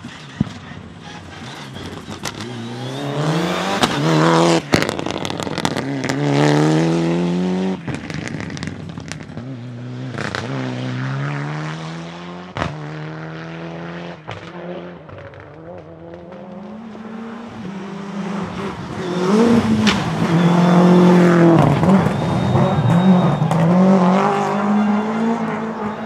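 Rally cars at full throttle on a stage, engines revving hard through gear changes in several separate passes, with a few sharp bangs from the exhaust in between. The last pass is the loudest.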